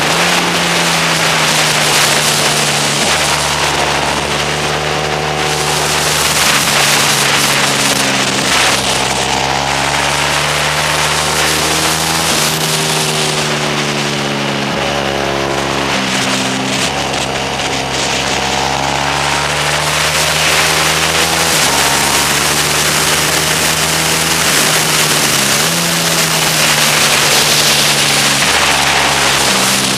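Motorcycle engine heard onboard at speed on a race track, its pitch climbing and dropping every few seconds with throttle and gear changes, over a steady rush of wind on the microphone.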